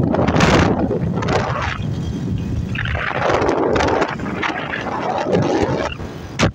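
Wind buffeting the microphone of a phone carried on a moving motorcycle, coming in irregular gusts over a steady low rumble from the ride.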